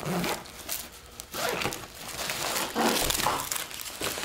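Rustling of a nylon backpack being spread open and crinkling of the plastic-bagged emergency supplies inside as they are handled, in a few short noisy bursts.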